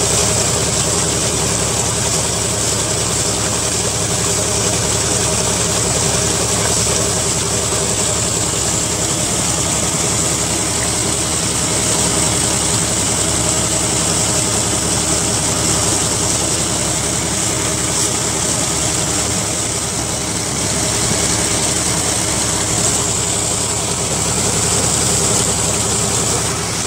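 Water gushing steadily from a tube well's outlet pipe into a pool, with an engine running steadily underneath.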